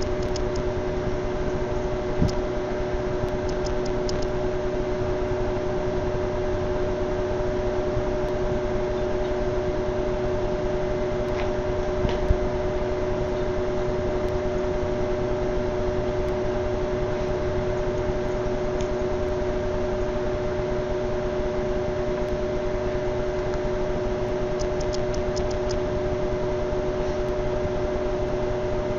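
A steady hum and hiss with two steady tones, like a fan or motor running, and a couple of faint knocks about two and twelve seconds in.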